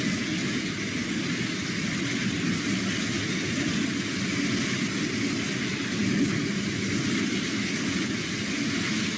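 Southern Class 377 Electrostar electric multiple unit moving along the platform: a steady noise of the carriages and wheels running on the rails.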